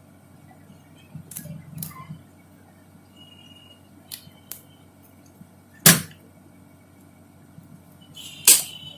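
Spring-loaded push-button desoldering pump firing twice, a sharp snap about six seconds in and another near the end as the plunger shoots up and sucks solder. Fainter clicks come a few times before.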